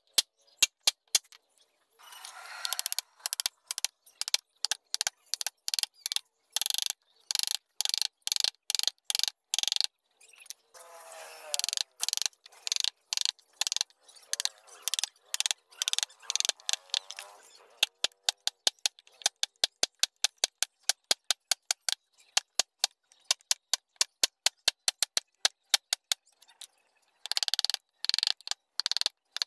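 Carving gouge driven by light mallet taps into a wooden block: a rapid run of sharp taps, about three to four a second, as the blade cuts out the petals of a carved flower.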